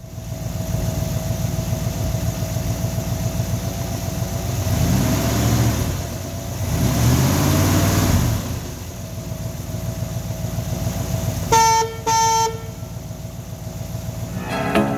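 Excalibur SS Roadster's Chevrolet small-block V8 idling, revved up and back down twice. Near the end a car horn gives two short toots.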